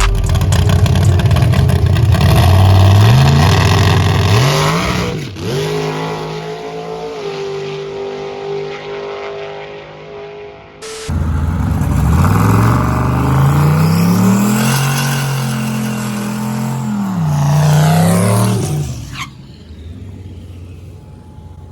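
Drag race car engines at full throttle down the strip, the pitch climbing and dropping back at each gear change. There are two runs: the first fades after about 5 s, and the second starts abruptly about 11 s in, winds up through its gears and cuts away near the end.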